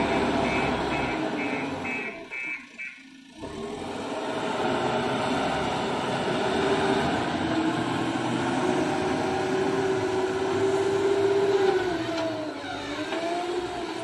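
JCB backhoe loader's diesel engine running under load as it drives with a full front bucket of soil, the engine note rising and falling as it works. A repeated high beep sounds for the first few seconds.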